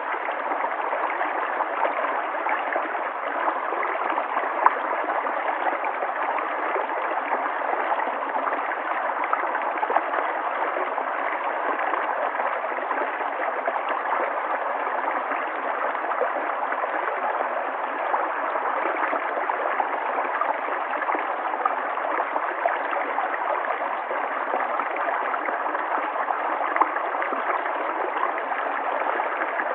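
River water flowing: a steady, even rush and gurgle of running water, with a few small splashes standing out now and then.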